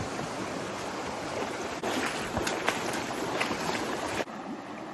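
Rushing river water: a steady noise with a few faint knocks. It drops suddenly to a quieter level about four seconds in.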